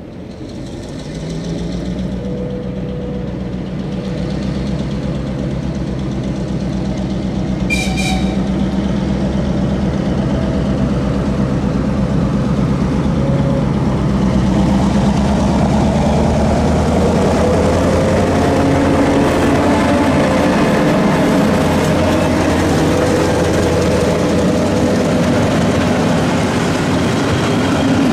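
MÁV M61 NoHAB diesel-electric locomotive with its EMD 567 two-stroke V16 engine running. The steady engine drone grows louder over the first half and then holds loud as the locomotive comes close. A brief high-pitched tone sounds about eight seconds in.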